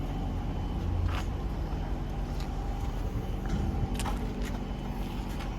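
Steady low hum of a running vehicle engine, with a few light clicks and taps.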